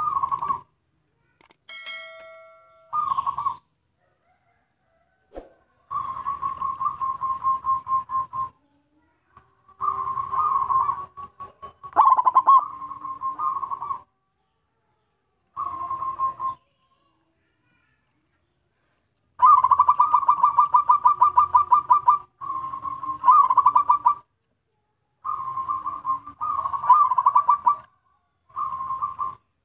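Zebra dove (perkutut) singing: repeated phrases of quick staccato cooing notes, each lasting one to three seconds with short pauses between them. This is the lively song of a local bird, used to lure other zebra doves.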